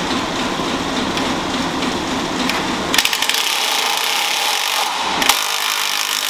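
A hand-held power tool whirring steadily, with its sound changing abruptly about three seconds in and again a couple of seconds later.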